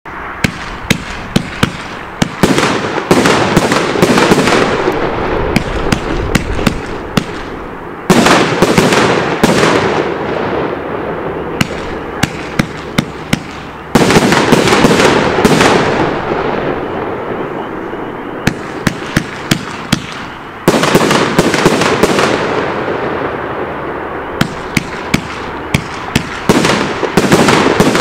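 Pyro King Classic Cool #11, a 500-gram firework cake, firing: runs of sharp single shots alternate with sudden waves of dense crackle that fade over several seconds, repeating four or five times.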